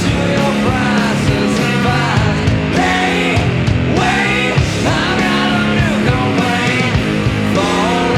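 Rock music played from a vinyl record on a turntable, loud and steady.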